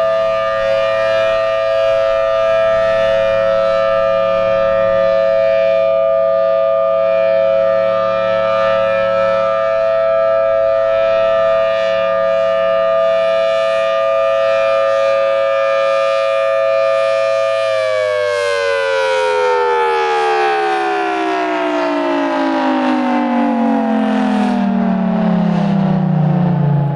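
Federal Signal Thunderbolt 1000T outdoor warning siren sounding its loud, steady full-alert tone, with two close pitches held together. About 18 seconds in, it begins winding down and the pitch falls steadily and smoothly. The siren is in healthy running order.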